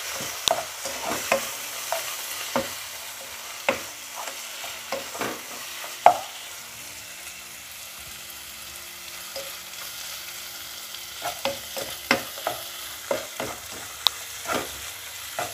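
Mutton pieces and ground spices sizzling in hot oil in a pan while a spatula stirs them, with frequent short scrapes and knocks of the spatula against the pan. The stirring eases off around the middle and picks up again about two-thirds of the way in.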